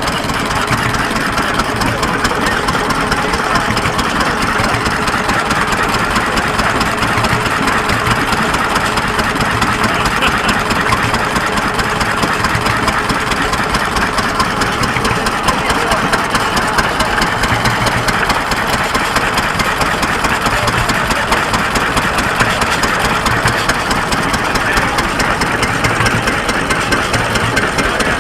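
Wood-shingle planing machine running steadily, a fast even mechanical clatter over a motor drone.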